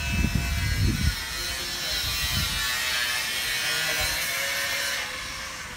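Electric power tool running with a steady high whine during home renovation work, easing off about five seconds in. Low thumps in the first second.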